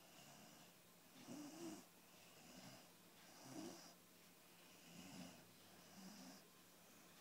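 Chocolate Labrador puppy snoring faintly in its sleep, about five soft snoring breaths at an even pace, a little over a second apart.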